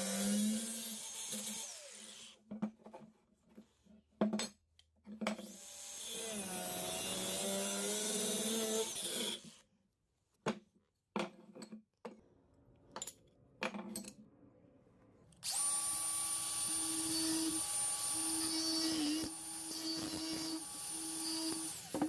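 Cordless angle grinder with a cutting disc cutting through steel square tube, running down after the first cut, with a second cut a few seconds later. Between and after the cuts come knocks and clanks of the steel pieces being handled, and from about two-thirds in a power tool runs steadily again with a thin high whine for about six seconds.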